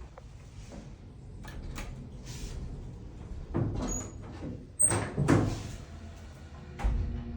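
A Dover elevator knocking and clunking: a series of sharp knocks over a low steady hum, the loudest pair about five seconds in and a low thud near the end. The cause of the knocking is unknown.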